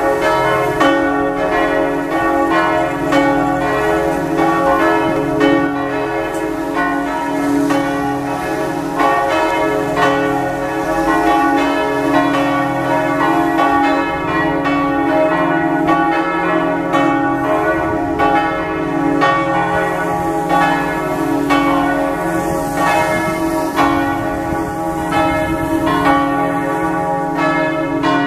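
Several church bells in the tower swinging together, with a steady stream of overlapping strokes and a sustained hum beneath them. They are ringing the call to Sunday morning mass.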